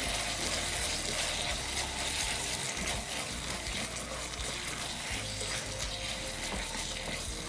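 Tomyam sauce simmering steadily in a wok with carrot strips and choy sum stems, stirred with a silicone spatula.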